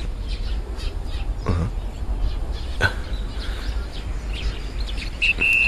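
Outdoor ambience with birds chirping and scattered light knocks over a low steady hum. Near the end comes a short, high, steady note.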